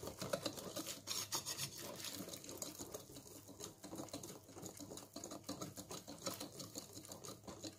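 Wire whisk beating thick cake batter in a mixing bowl: a fast, steady run of faint scraping ticks.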